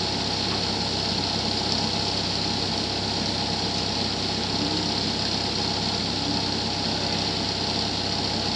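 Bobcat S130 skid-steer loader's diesel engine running steadily close by, its speed unchanging.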